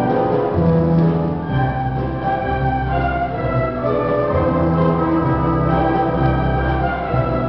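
Symphony orchestra playing held chords over bass notes that change every second or so.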